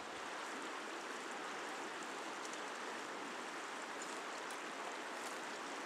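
River water rushing steadily over rocks, an even hiss with no low rumble.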